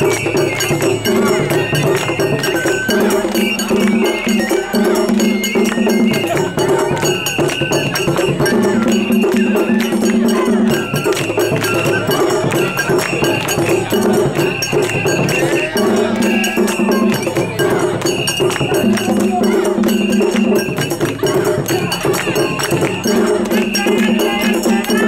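Japanese festival hayashi music: drums and a small hand gong beat fast, steady strokes under held notes from a bamboo flute.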